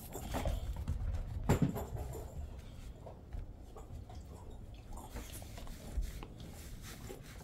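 A Jindo dog moving about on the floor while playing with a small rubber ball: light, scattered taps and knocks of paws and ball. The sharpest knock comes about a second and a half in, another about six seconds in.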